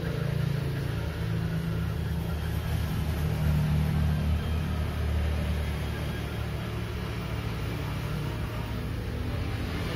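Hot air rework station blowing steadily as a flashed 8-pin BIOS chip is soldered back onto a laptop motherboard: a steady low hum.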